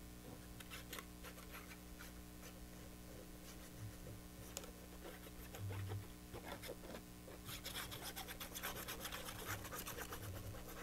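Hands handling paper: faint taps and rustles, then about two-thirds of the way in a run of quick, scratchy rubbing as patterned paper is smoothed and pressed down onto a paper box. A low steady hum sits underneath.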